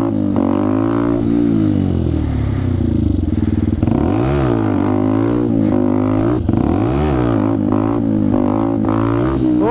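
Benelli TNT 125's single-cylinder four-stroke engine revving up and dropping back several times as the rider pops wheelies, its pitch rising and falling in waves.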